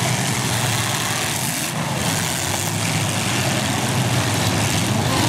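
Engines of several full-size demolition derby cars running together in a steady, loud din.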